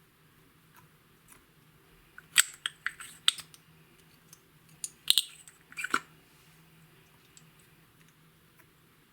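Clear slime being worked by hand, giving two quick runs of sharp clicks and pops, one about two seconds in and one about five seconds in.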